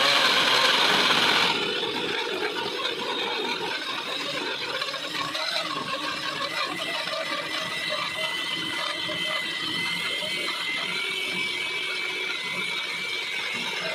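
Electric blender motor running steadily as it blends ash gourd pieces into juice, with a faint whine. It is louder for about the first second and a half, then settles to a slightly quieter, even run whose whine creeps up in pitch near the end.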